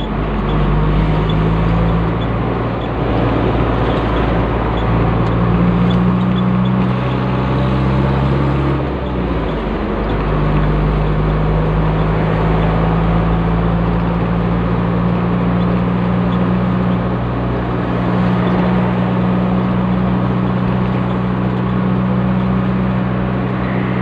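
Diesel vehicle's engine running with tyre and road noise, heard from inside the cabin while driving. It is a steady hum whose pitch shifts a few times, dipping and climbing again about ten seconds in.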